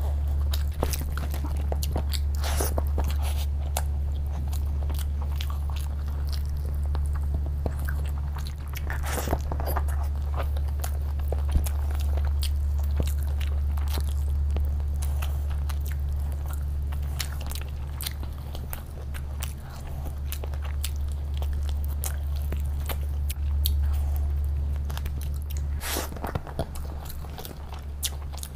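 Close-miked chewing and biting of fried chicken and chicken biryani eaten by hand, with many sharp wet clicks and smacks throughout, over a steady low hum.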